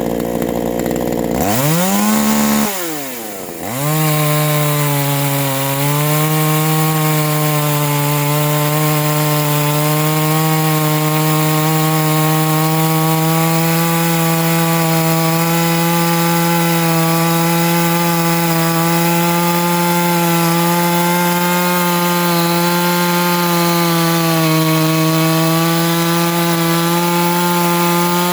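Ported neo-tec NH841 chainsaw cutting softwood. It revs up fast, dips once, then holds a steady, slightly lower pitch under load for a long cut, and rises again near the end as the chain frees up.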